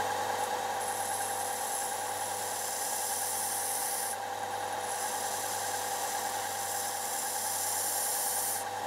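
Belt sander with a narrow finger-sander belt running steadily, with the hiss of the abrasive belt against the blades of a Hastelloy X nickel-alloy turbine wheel. The high hiss lets up briefly about four seconds in and again near the end, as the wheel is moved on to the next blade.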